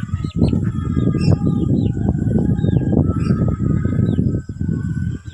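Birds chirping: many short, falling, high chirps, with some held notes. Under them is a loud, steady crackling rumble of handling or rustling noise close to the microphone.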